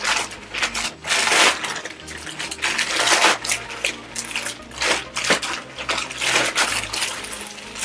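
Plastic crinkling and rustling as hands rummage in a plastic mailer bag and pull out an item in a clear plastic wrapper, irregular and uneven.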